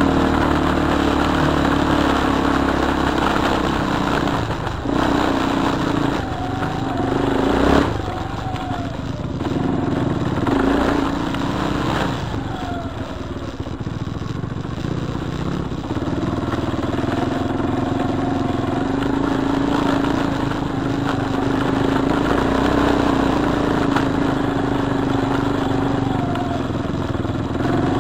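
Single-cylinder four-stroke ATV engine running on a dirt trail, its pitch rising and falling with the throttle, with a few knocks from the machine jolting over rough ground.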